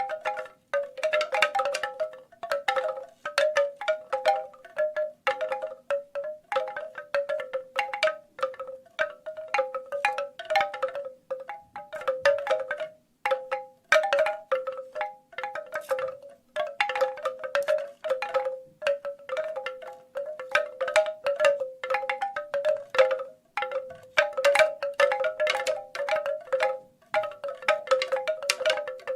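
Bamboo wind chimes clattering: the hollow tubes knock together in irregular clusters, each knock ringing briefly at a few fixed pitches, with short lulls between gusts.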